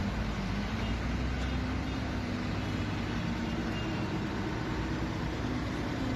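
Road traffic in a jam: cars and lorries queued with their engines running, a steady rumble and hiss.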